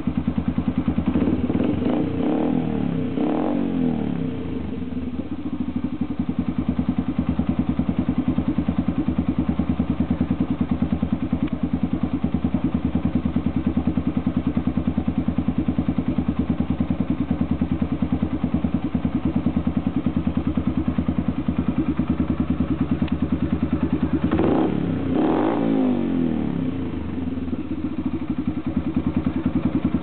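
Yamaha XTZ 125's single-cylinder four-stroke engine idling in neutral through an aftermarket Roncar Aluminium RS exhaust, with a steady, even exhaust beat. The throttle is blipped twice, a couple of seconds in and again about five seconds before the end, the engine note rising and falling back to idle each time.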